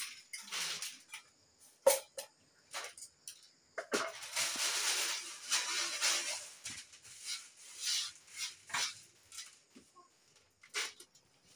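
Dry red lentils (masoor dal) rustling and sliding on a woven bamboo tray as they are sifted and picked over by hand: a run of short swishes, with one longer sweep lasting a couple of seconds about four seconds in and a sharp tap about two seconds in.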